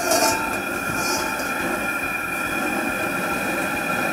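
Propane fish-fryer burner, rated about 58,000 BTU, running steadily under a carbon steel wok. Short hisses right at the start and about a second in.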